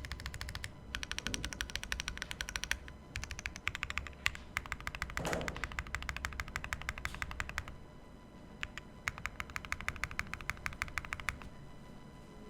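Fast typing on a Sugar65 aluminium-case mechanical keyboard with Akko Cream Blue V3 tactile switches: rapid runs of keystrokes in bursts with short pauses between. A short downward-sweeping sound comes about five seconds in.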